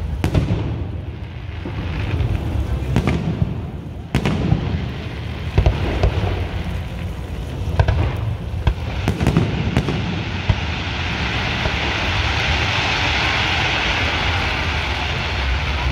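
Professional aerial fireworks shells bursting with sharp booms at irregular intervals for about ten seconds, then a steady hiss takes over.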